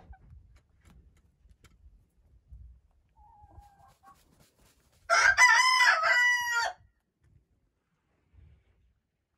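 Icelandic rooster crowing once, a single cock-a-doodle-doo about a second and a half long starting about five seconds in.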